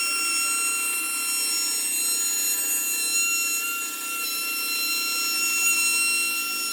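Electric woodworking power tool running under load, a steady high-pitched motor whine over the noise of the work on wood, stopping at the very end.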